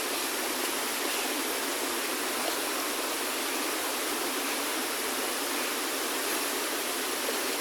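Mountain stream rushing, a steady, even water noise.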